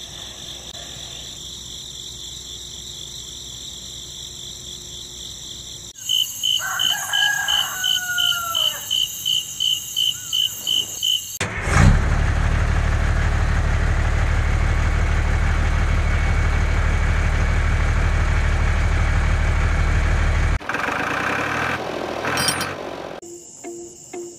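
Insects trilling steadily, then chirping about three times a second while a rooster crows once. From about twelve seconds in, a loud steady engine rumble runs for about nine seconds and cuts off abruptly, followed by a few clinks.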